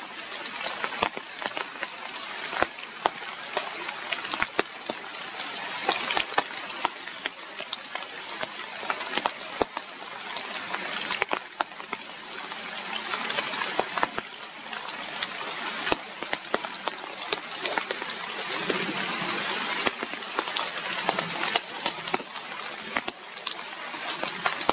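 Steady rain falling through foliage, with many sharp taps of drops landing close by.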